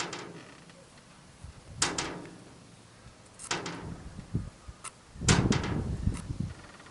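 Scattered sharp clicks and knocks, with a denser rough rubbing stretch about five seconds in, as the armature of a GAZelle heater fan motor is handled and the slots between its commutator segments are cleaned out.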